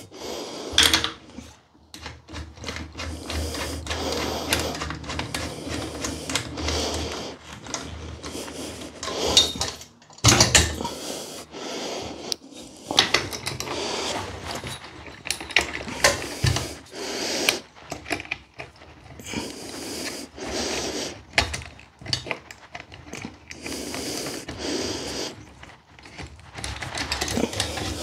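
Screw-in end fittings being twisted by hand into the ends of metal parallette bars: an irregular run of clicks, taps and short scrapes as the parts are turned and handled. It is a fiddly fit where the thread does not want to catch.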